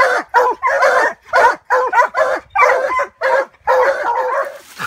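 Treeing Walker coonhound barking treed at the base of a tree: a fast run of loud, ringing barks, some short and some drawn out into bawls, the sign that the hound has a raccoon up the tree.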